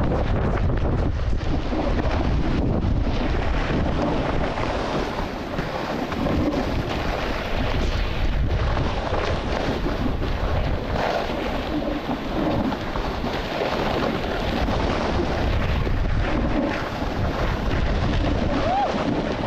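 Wind rushing over the microphone of a moving camera, mixed with the steady hiss and scrape of a snowboard sliding and carving over groomed snow.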